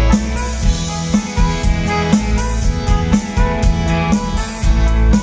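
Live rock band playing an instrumental passage with no vocals: electric guitars, bass and drums on a steady beat, with a strong bass note about once a second.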